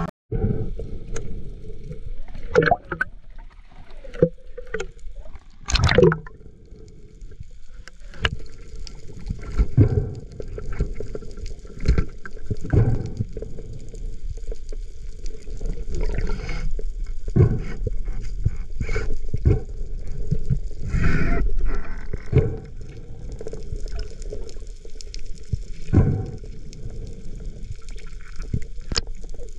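Muffled water sound from a camera in the water: gurgling and sloshing, with irregular knocks and surges every few seconds.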